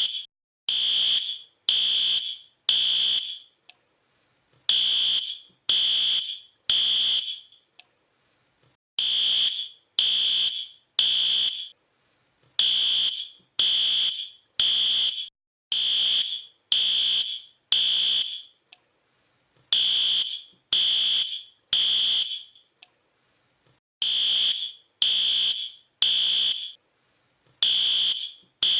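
Fire alarm beeping: high-pitched beeps about a second apart in sets of three with a short pause between sets, the standard three-pulse evacuation pattern. Once in the middle the beeps run six in a row.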